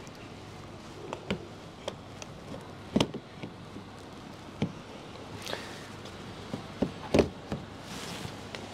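Clicks and knocks of an EV charging connector being handled and plugged into a Fiat 500e's charge port, the loudest about three seconds in and again about seven seconds in, over a faint steady hum.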